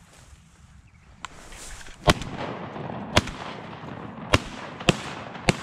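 Shotgun shots: five sharp reports starting about two seconds in, roughly a second apart, the first the loudest, with a rustling hiss between them.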